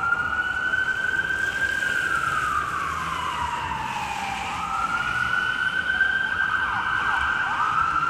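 Emergency vehicle siren wailing in a slow rise and fall: it climbs, holds high for a moment, slides down over a couple of seconds, then climbs and holds again.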